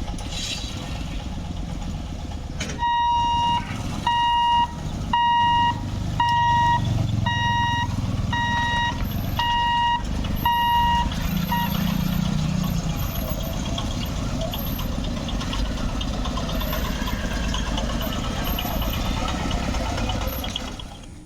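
Road vehicle engines running steadily, with an electronic warning beeper sounding about once a second for some eight seconds, starting about three seconds in.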